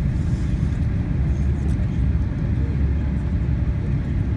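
Cabin noise inside an Airbus A380 taxiing: a steady low rumble from the engines at low thrust and the rolling airliner.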